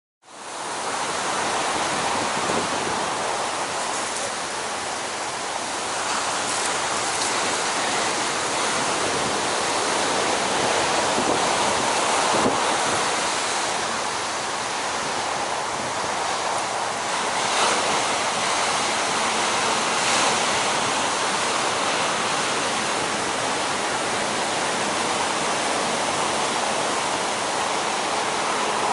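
Large ocean surf breaking: a steady, continuous rush of waves and whitewater that fades in at the very start.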